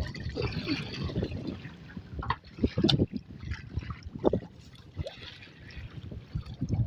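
Water splashing and trickling in small irregular splashes, with a few light knocks.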